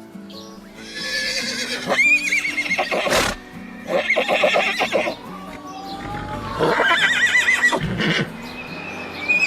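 Horse neighing three times, each a whinny with a quavering, shaking pitch, over background music.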